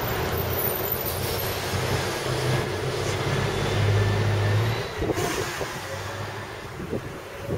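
Steady street traffic noise with a large vehicle's engine hum that swells about four seconds in and drops away about a second later.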